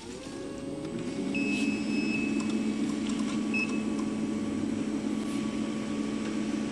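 UV LED curing control system of a UV flatbed printer switched on: its water-cooling unit starts with a hum that rises in level and slightly in pitch over the first second, then runs steady. A couple of short high beeps come a little over a second in and again a few seconds later.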